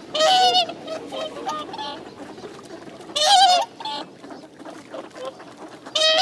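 Whooper swans calling: three loud calls about three seconds apart, with softer short calls from the flock in between.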